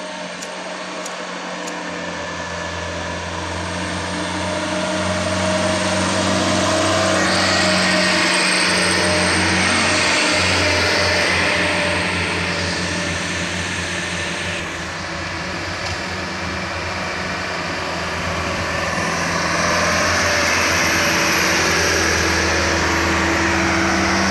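Diesel engines of heavily loaded sugarcane trucks labouring at full throttle up a climbing bend, one truck passing about halfway through and the next growing louder near the end.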